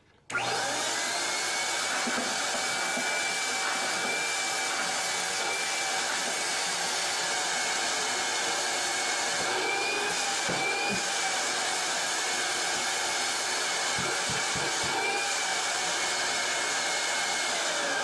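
Homemade vacuum cleaner's 110-volt motor switching on about a quarter second in and running with a steady high whine, sucking up cat litter mixed with metal screws, with a few brief knocks in the middle. Near the end it switches off and the whine falls as the motor winds down.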